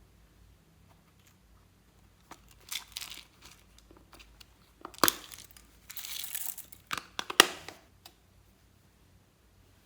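Intermittent crinkling and crackling handling noise, with a few sharp clicks a little after halfway through.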